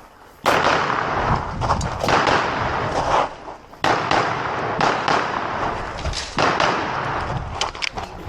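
CZ P-10 C pistol fired in a rapid string of shots during an IPSC course of fire. The shooting starts about half a second in, with a brief break a little past three seconds.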